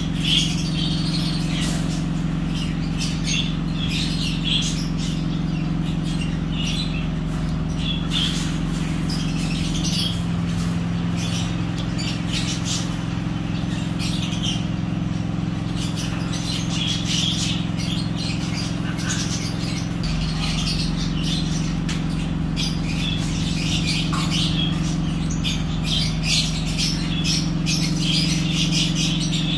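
Many short, high squeaks and chirps from week-old hamster pups nursing under their mother, over a steady low hum whose pitch shifts about ten and twenty seconds in.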